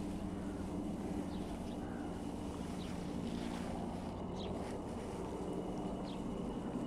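Outdoor ambience: a steady low machine-like drone with some wind on the microphone, and four short, high, falling chirps spaced about a second and a half apart.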